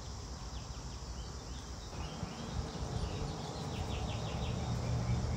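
Faint background ambience: short high chirps in quick runs over a low steady hum that grows a little stronger partway through. The oil being poured makes no distinct sound of its own.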